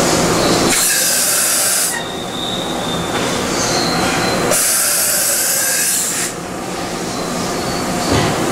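Okuma MC-50H CNC horizontal machining center running a dry-run cycle: steady machine running noise with a faint high whine, interrupted twice by a loud hiss lasting one to two seconds, about a second in and again about four and a half seconds in.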